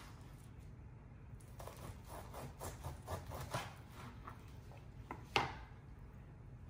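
Knife slicing through a smoked rack of St. Louis-style pork ribs on a plastic cutting board: a run of short cutting strokes, then a single sharp knock about five seconds in as the knife is set down on the board.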